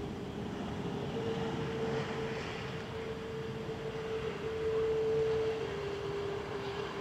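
Steady turbine whine from the stationary Iberia Airbus A330-200, its pitch stepping slightly up about a second in and down again near the end, over a low rumble.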